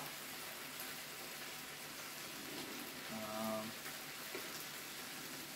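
Food sizzling on a Korean barbecue grill: a steady, soft frying hiss, with a short hum-like tone about three seconds in.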